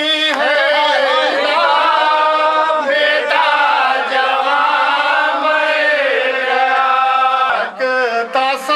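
A man's voice chanting a nouha, a Shia mourning lament, unaccompanied, in long held notes that waver up and down. He breaks briefly for breath near the end.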